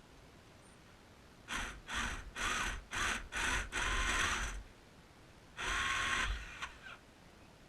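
Pressurised hissing spray in a run of five short bursts, then one longer burst a second or so later, each carrying a faint wavering whistle.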